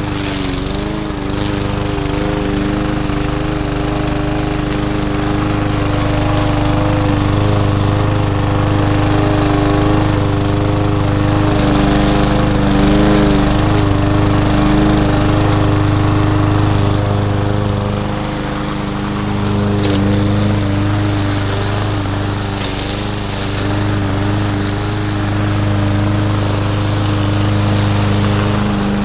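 A walk-behind rotary push mower's small single-cylinder engine running steadily at mowing speed. Its pitch dips briefly a few times as the blade cuts into thick, tall weeds.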